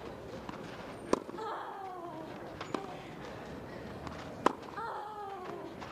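Tennis rackets striking the ball in a baseline rally on a clay court: three sharp hits about a second and a half apart, with a drawn-out vocal cry falling in pitch after the first and the last hit.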